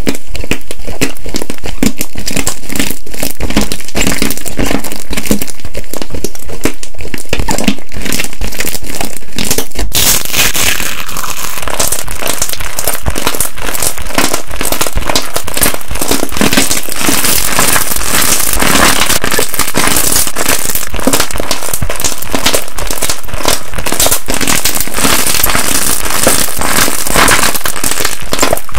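Crunchy slime being squeezed and poked by hand: dense crackling and popping clicks. About ten seconds in the sound turns brighter and crisper, as another slime takes over.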